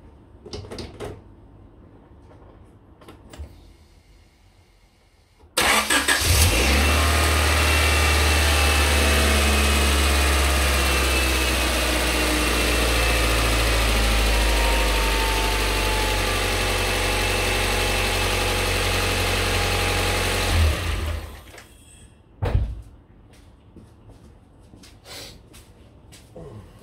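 The Rover 620's 2-litre Honda four-cylinder engine is started about five seconds in, catching right away. It is run at idle for about fifteen seconds, the idle easing down slightly, to fill the freshly fitted oil filter, and is then switched off abruptly. A single knock follows shortly after.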